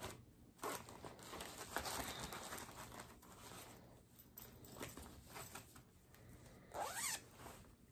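Plastic and fabric project bags rustling as they are handled, with a zipper pulled in quick strokes near the end.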